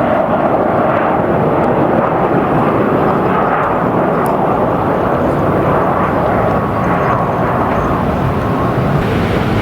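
Jet airliner's engines as it comes in to land, a loud steady rush of noise, with a faint whine from about five to eight seconds in.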